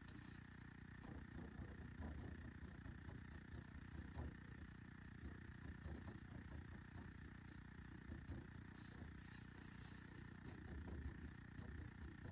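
Near silence: a faint low room rumble, with soft scratchy strokes of a paintbrush working oil paint onto a gessoed board.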